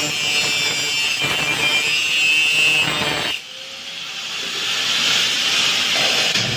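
Metalwork on a steel terrace grille, either welding or power-tool work on the bars: a steady, harsh hiss that cuts off suddenly about three and a half seconds in, then builds back up over the next couple of seconds.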